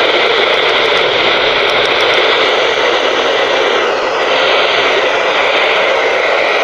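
Radio static: a loud, steady hiss from an FM receiver tuned to a NOAA Weather Radio frequency with no usable signal coming through.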